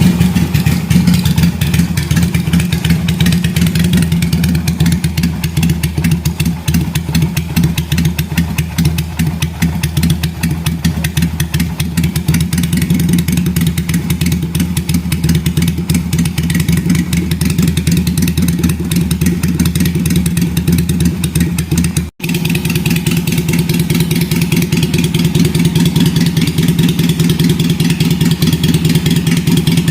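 V-twin motorcycle engine idling steadily with a loud, even pulse. The sound drops out for an instant about 22 seconds in, then the idle carries on unchanged.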